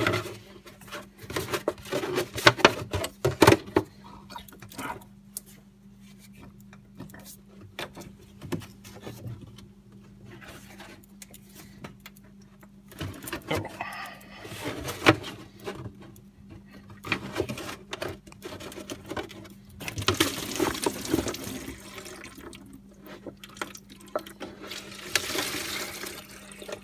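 Engine coolant draining from a pulled thermostat-housing hose into a plastic milk jug, coming in spells of pouring and splashing. Sharp knocks and clatter from the hose and jug being handled, mostly in the first few seconds.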